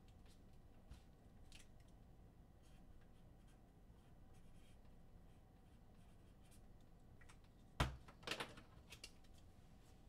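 Near silence: room tone with a few faint clicks, one sharp knock about eight seconds in, and brief light handling ticks and rustles right after it.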